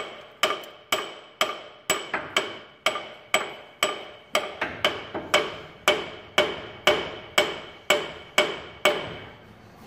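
Steady hammer blows on steel, about two a second, each with a ringing metallic tone. They are struck to knock a stuck part out of a transmission, and they stop shortly before the end.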